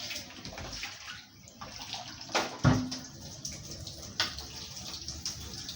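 Tap water running as a dish is rinsed in a sink, with a few knocks of the dish against the sink, the loudest about two and a half seconds in.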